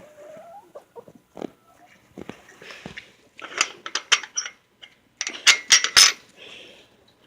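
A clatter of sharp clicks and knocks, sparse at first and then coming thick and fast, loudest about four to four and a half seconds in, with a short faint squeak near the start.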